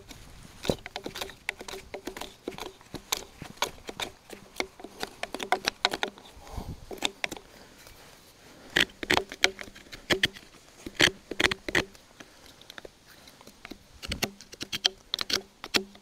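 Wood chisel pushed by hand into a mortise in a timber fence post, scraping and levering out loose chips and shavings from the bottom: irregular runs of quick scratchy clicks and taps, with short pauses between.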